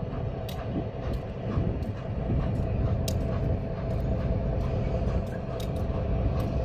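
Norfolk and Western 611, a J-class 4-8-4 steam locomotive, running at a distance as it approaches slowly: a steady low rumble with a faint steady hum and irregular light clicks.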